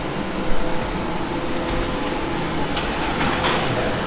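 Steady mechanical hum, with a short thump about half a second in and a brief hiss near the end.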